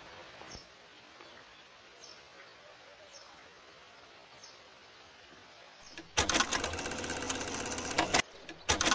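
Faint outdoor background with a few short, high bird-like chirps about a second apart. About six seconds in, a loud, rapid clattering rattle starts, breaks off briefly, and starts again near the end.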